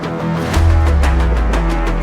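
Background music with a steady beat; a heavy bass comes in about half a second in.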